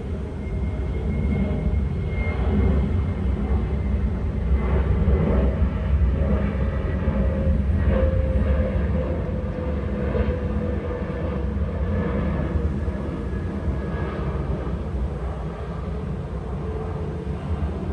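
Low engine rumble with faint whining tones that drift slightly lower in pitch, swelling to its loudest about halfway through and then easing off: a large engine passing by.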